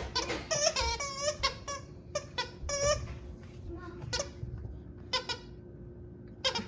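Plush squeaky chicken dog toy squeaking over and over as a husky chews it: quick irregular squeaks, thick in the first few seconds, then sparser, with one more near the end.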